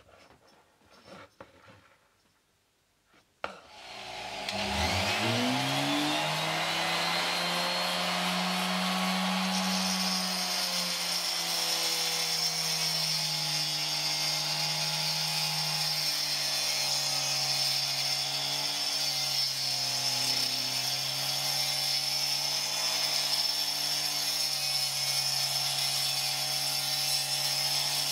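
Flexible-shaft rotary tool with a thin diamond cutting disc clicked on about three and a half seconds in, spinning up with a rising whine, then cutting steadily into wet Welsh slate, a grinding hiss over the motor's steady whine.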